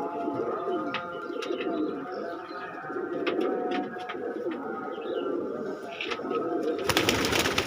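Domestic pigeons cooing continuously, several birds overlapping, with scattered sharp clicks. A loud, short rustling burst comes about seven seconds in.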